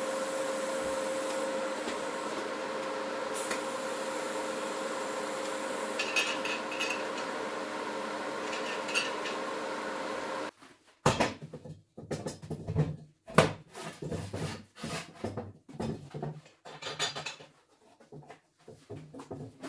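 A steady hum for about ten seconds, then an abrupt cut to a run of irregular metal clanks and knocks, as of steel parts being handled and set down on a hard surface.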